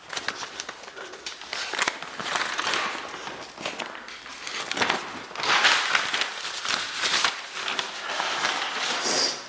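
Footsteps with a crackling, rustling noise and irregular clicks, loudest about halfway through.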